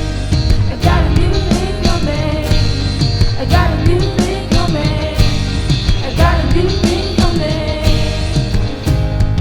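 Live contemporary worship music: a rock band with drums, bass and electric guitar playing under a singing voice.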